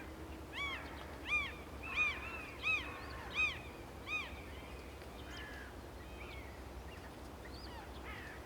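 Red kite chicks begging with a run of six short, thin calls, each rising then falling, about two-thirds of a second apart, followed by a few fainter calls.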